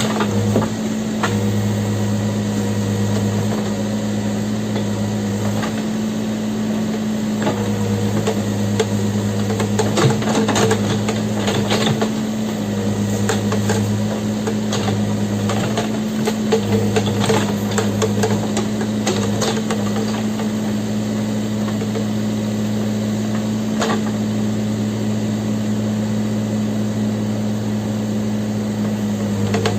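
Backhoe loader's diesel engine running at a steady pitch, with scattered knocks and clanks from the machine working, most of them around the middle.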